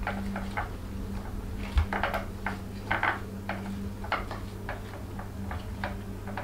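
Sliced raw potatoes being laid by hand in a glass baking dish: a string of irregular light clicks and taps as the slices touch the glass and each other, over a steady low hum.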